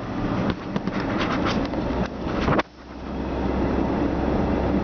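Road noise inside a moving car's cabin: a low rumble with a rapid run of clattering knocks. About two and a half seconds in, the sound drops suddenly, then a steady low driving rumble builds back up.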